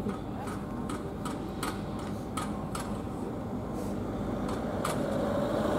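Parked fire engines' diesel engines idling as a steady low rumble, with a regular ticking about two to three times a second; the engine sound grows louder near the end.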